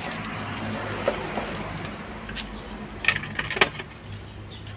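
Hands working with a cut-down plastic water-jug pot and the plant: a few short knocks and rustles, the loudest a little past three seconds in, over a steady low hum.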